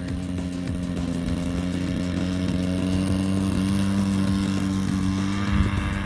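DLE 35RA two-stroke gasoline engine on a 30cc RC airplane running at high throttle with a steady pitch as the plane takes off. The brand-new engine is running a little rich.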